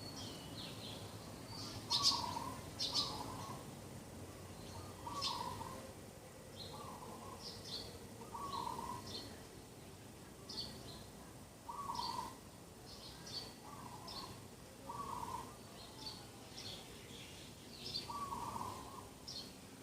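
Birds calling in the morning: many short, high chirps overlapping with a lower short call repeated every second or two.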